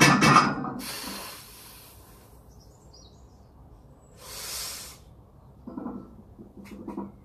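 A lifter's forceful breathing while straining under a heavy barbell bench press: a sharp, loud breath at the start, a long hissing exhale, another hissing breath about four seconds in, then short strained grunts near the end.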